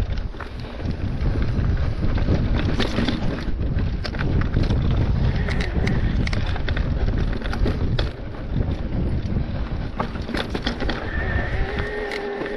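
Mountain bike clattering and rattling over a rocky, gravelly trail, with many irregular sharp knocks from the frame and wheels and tyres crunching on loose stones, under steady wind buffeting on the camera microphone.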